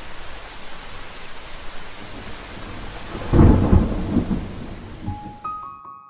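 Steady rain with a heavy roll of thunder about three seconds in, a rain-and-thunder sound effect. Piano notes begin near the end.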